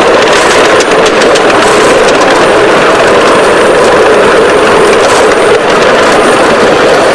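Miniature steam locomotive running along the track, heard from its cab: a steady, loud rushing noise with no break.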